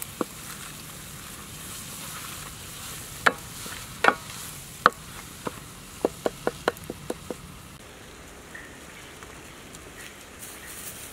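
Paste sizzling as it fries in a nonstick pan, with a wooden spatula scraping and knocking against the pan as it is stirred. A quick run of about seven clicks comes about six seconds in; after that the stirring stops and the sizzle is quieter.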